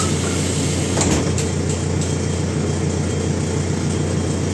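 Diesel engine of a MAZ-105 city bus idling at a stop, heard inside the passenger cabin with the doors open: a steady low hum, with a few light clicks about a second in.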